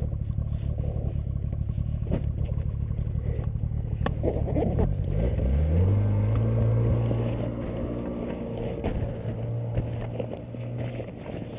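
Snowmobile engine running, revving up about halfway through, then holding a steady higher pitch that eases off toward the end.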